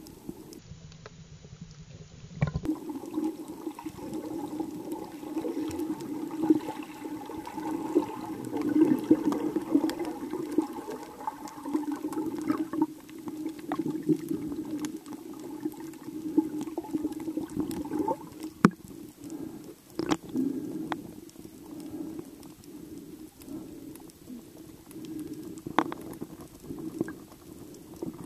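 Muffled water noise recorded underwater through a camera housing: a steady, murky rush that swells and fades, with a few sharp clicks now and then.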